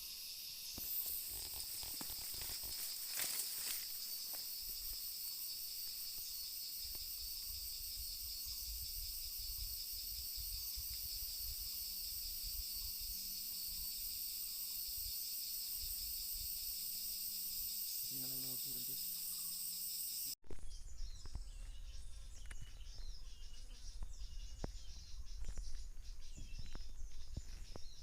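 Steady, high-pitched chorus of forest insects, layered in several pitches. It cuts off abruptly about twenty seconds in and gives way to faint, scattered bird chirps.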